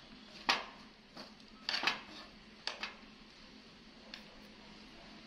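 Dishes and utensils being handled on a table: a handful of short clinks and knocks, the loudest about half a second in and a quick cluster near two seconds, then a few lighter taps.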